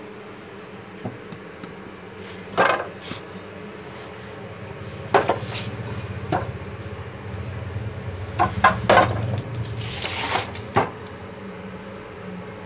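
Hitachi miter saw handled with the motor off: its spring-loaded head is pivoted down and up, giving a series of separate metal and plastic clunks and knocks, with a short rattle about ten seconds in.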